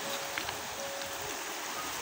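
Shallow, fast-flowing river running over stones: a steady rushing wash of water.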